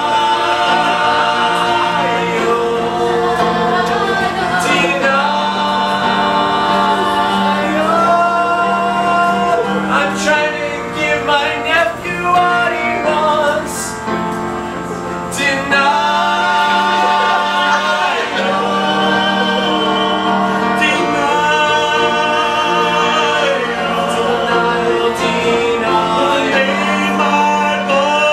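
A live song: several voices singing together in harmony, holding long notes over musical accompaniment.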